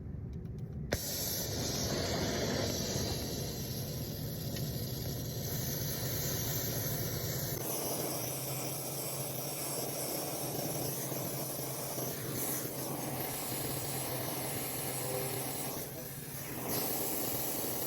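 Brazing torch flame hissing steadily while copper refrigerant lines are brazed under a nitrogen purge, starting abruptly about a second in; a low rumble under the hiss drops away after about seven seconds.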